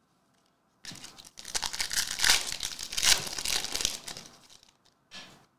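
Foil trading-card pack wrapper crinkling as hands tear it open, a dense run of crackles that starts about a second in, lasts some three seconds and fades out, with one short crinkle near the end.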